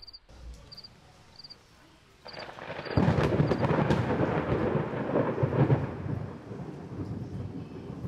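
A deep rumble of thunder builds about two seconds in, stays loud for a few seconds, then slowly rolls away. Before it, faint short high chirps repeat at a steady pace.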